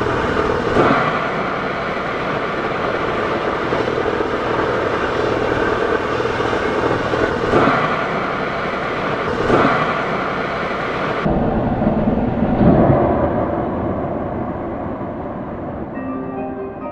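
SpaceX Starship Booster 7 venting during a tank depress, a steady loud rushing hiss with a few short thuds, which are taken to be the sound of the booster's downcomer collapsing. Music comes in near the end.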